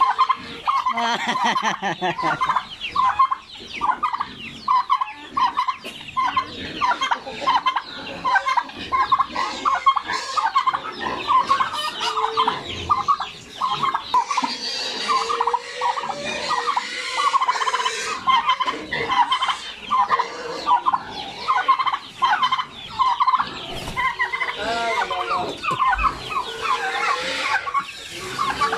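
Domestic tom turkey gobbling over and over while in full strut display, with chickens and chicks calling around it.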